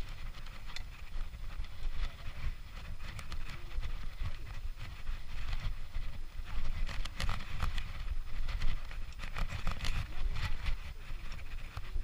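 Mountain bike riding over a dirt forest trail, heard from a chest-mounted camera: a steady low rumble of tyres and air, with frequent clicks and rattles from the bike over bumps.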